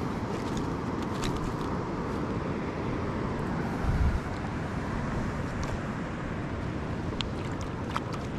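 Steady rumble of wind on an action camera's microphone, with a few light clicks and a brief low thump about four seconds in.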